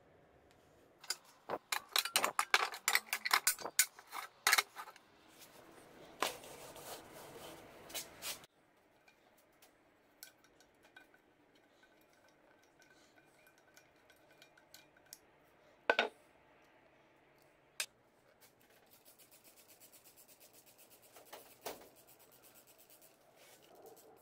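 Metal frying pans clattering and knocking as they are handled, for several seconds. Then quieter small scrapes and a few sharp clicks as a screwdriver works the screw holding a pan's handle, with a run of fast, even ticks near the end.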